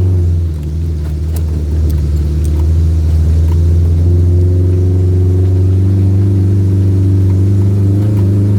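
Off-road four-wheel-drive vehicle's engine running steadily under load on a trail. Its level dips briefly about half a second in, with a few light knocks in the first few seconds.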